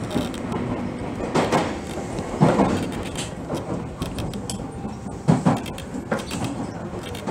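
Electric train running at about 46 km/h on narrow-gauge track, heard from the front of the train. A steady rumble of wheels on rail is broken by irregular clacks and knocks, the loudest about two and a half seconds in and again a little after five seconds.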